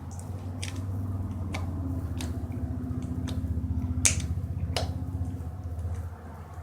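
Slime being squeezed and poked by hand, giving irregular sharp wet pops and clicks, the loudest about four seconds in, over a steady low hum.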